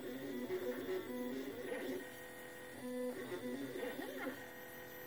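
Stepper motors of a CNC-converted Proxxon MF70 mini mill running a G-code engraving test, whining in steady tones that jump in pitch every fraction of a second as the axes move, with a few gliding tones about four seconds in.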